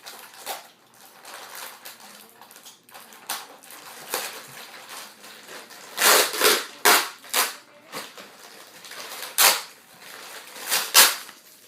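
Metal skateboard trucks being handled, giving a series of sharp clacks and knocks, loudest in a cluster about six seconds in and again near the end.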